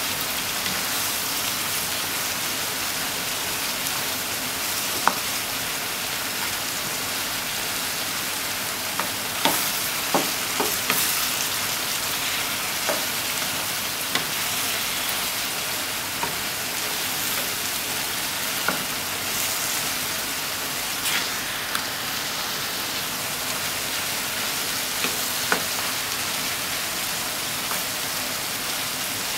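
Pork mince and sliced eggplant sizzling in a frying pan, a steady frying hiss, with a few short clicks and scrapes as a spatula stirs and turns them against the pan.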